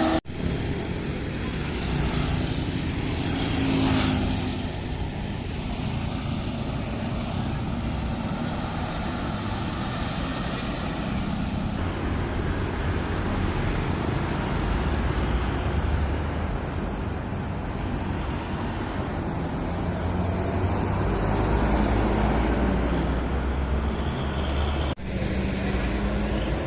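Road traffic: buses and cars passing with their engines running. The sound is a steady mix of low engine noise and tyre noise, broken off abruptly twice.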